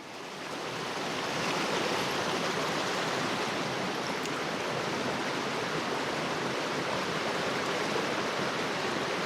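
Rushing water of a mountain stream, a steady rush that fades in over the first second and then holds level.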